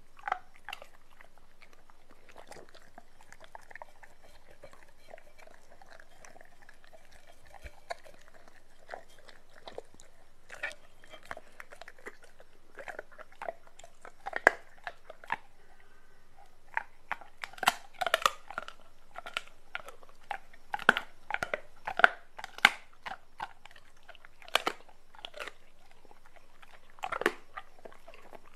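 Doberman pinscher eating raw meat from a plate: wet chewing, biting and smacking of the jaws. Sparse at first, the bites come thicker and louder in the second half.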